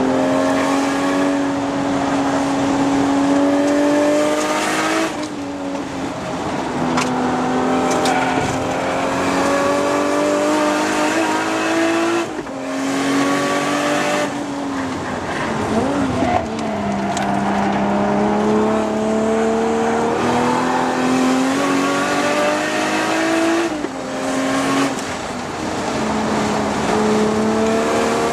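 Toyota Supra MKIV's 2JZ-GTE twin-turbo straight-six engine heard from inside the cabin while being driven hard on track. The engine note climbs slowly and drops back sharply about four times.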